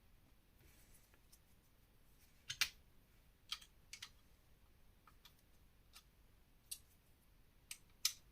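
Plastic LEGO pieces clicking and clacking as they are handled: about seven or eight sharp, irregular clicks, the loudest about two and a half seconds in.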